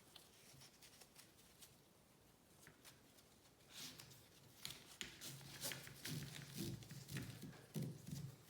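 Faint handling noise of a rifle sling's excess nylon strap being stowed: light rustling and small clicks, nearly silent at first and busier in the second half.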